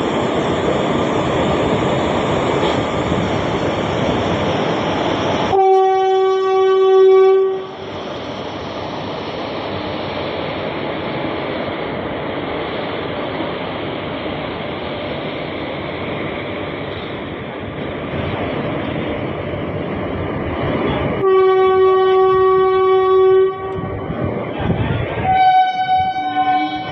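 WAP-4 electric locomotive sounding its horn as the train departs. Two long blasts of about two seconds each, roughly fifteen seconds apart, are followed near the end by a higher-pitched blast, all over the steady running noise of the train.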